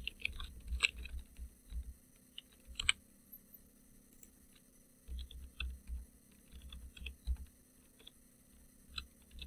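Typing on a computer keyboard in two short runs of key clicks, with a single louder click about three seconds in between them.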